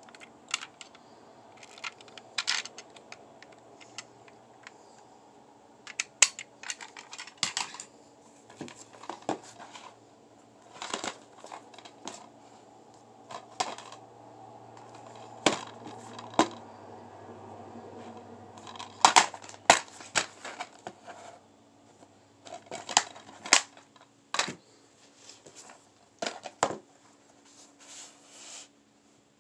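Handling noises: irregular clicks, taps and knocks as plastic DVD cases and a die-cast toy car are picked up, turned over and set down on a wooden shelf, over a faint steady hum.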